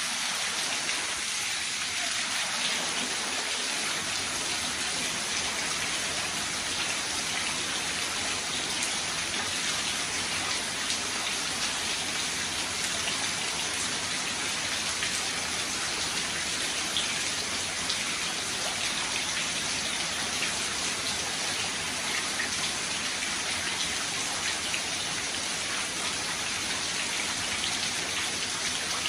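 Outdoor rain-style shower running, its water falling and splashing steadily onto the floor below.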